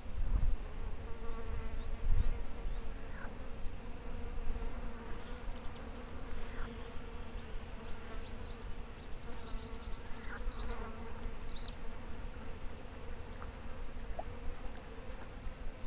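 A flying insect buzzing steadily close by, with short bird chirps in the middle stretch and wind gusting on the microphone.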